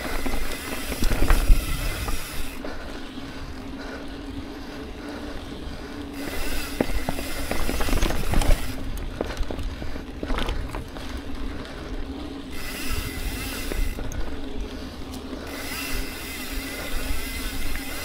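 Mountain bike ridden along a dirt trail: the rear hub's freewheel buzzes in spells of one to three seconds while coasting, four times, over a steady rumble of tyres and wind on the microphone, with a few sharp knocks from the bike over the ground.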